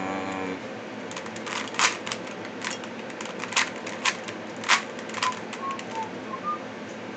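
Plastic Rubik's Cube being turned by hand during a solve: irregular clicks and snaps as its layers rotate, some sharper than others.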